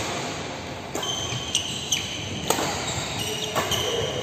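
Badminton rally: about five sharp pops of rackets striking the shuttlecock, spaced roughly half a second to a second apart, with high squeaks of shoes on the court mat.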